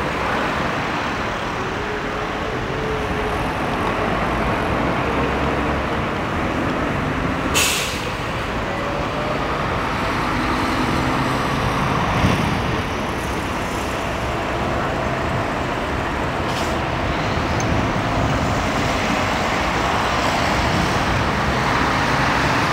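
Road traffic: cars, vans and light trucks driving past and running in a slow queue, with steady engine and tyre noise. About a third of the way in there is a short sharp hiss of a truck's air brakes, and a fainter hiss later on.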